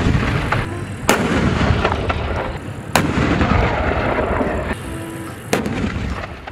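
Soviet T-34-85 tank's V12 diesel engine running as the tank drives, a continuous low din. Over it come three sharp, loud bangs like gunfire, about two seconds apart, at roughly one, three and five and a half seconds in.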